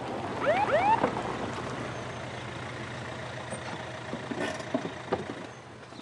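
Hyundai police car giving two short rising siren whoops about half a second in, then its engine running steadily as it pulls up. A few sharp clicks come near the end.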